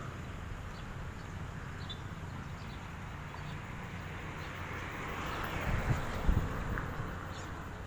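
Outdoor morning ambience: a steady low rumble of wind on the microphone, with a few faint bird chirps. About halfway through, a whooshing swell of noise rises, peaks with a couple of low thumps, and fades out again.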